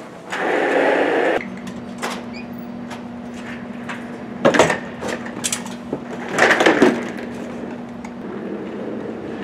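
An office chair's casters roll briefly over a hard floor, then a steady low hum carries on under a few sharp knocks and clatters; the two loudest come a little past halfway.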